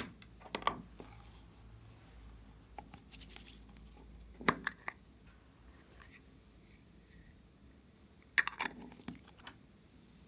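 A small plastic glitter pot being handled while glitter is poured from it: a few sparse clicks and knocks. The loudest comes about four and a half seconds in, and a quick run of taps follows near the end.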